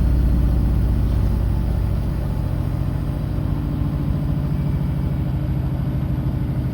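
Samsung washing machine drum spinning down after a high-speed spin, a steady low hum with a rapid even pulse, easing off slowly.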